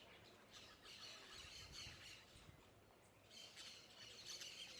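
Faint chorus of many birds chirping and squawking, short high calls crowding together in bursts that thin out in the middle and pick up again near the end.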